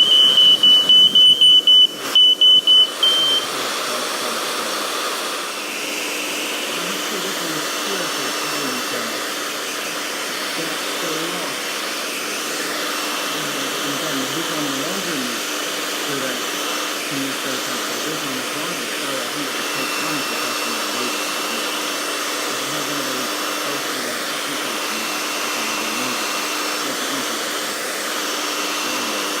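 Aico Ei140-series mains heat alarm sounding a loud, rapidly pulsing high beep that cuts off about three seconds in. A hair dryer then runs steadily on the alarm's heat sensor.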